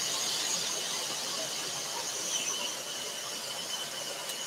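Scroll saw running with its fine blade cutting a thin wooden panel: a steady high hiss with a thin whine over it.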